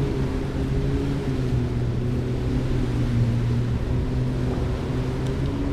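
A boat engine running steadily at low revs: a low, even pitched hum.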